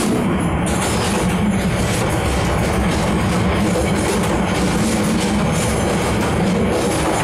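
Passenger train carriage running along the track, heard from inside: a steady rumble with rattling running through it.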